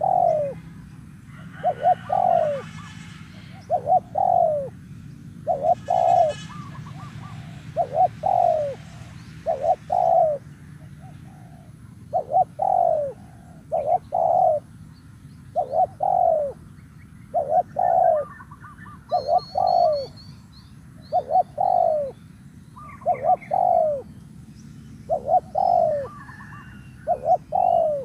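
Spotted dove cooing over and over, a short note followed by a longer, slightly falling coo about every two seconds. Small birds chirp faintly and higher in the background.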